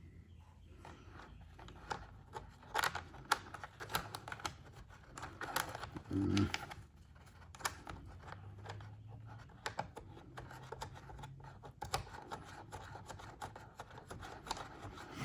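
Irregular light clicks, taps and scratches of hand work on motorcycle parts as screws and small pieces are fitted, with a duller knock about six seconds in.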